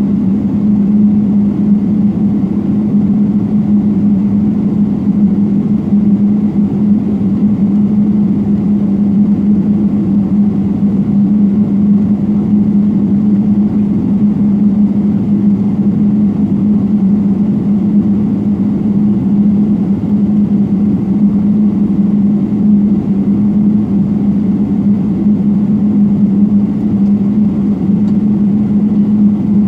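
Steady cabin hum of a Boeing 777 holding on the ground with its GE90 engines at idle: an even drone with one strong low tone, unchanging throughout.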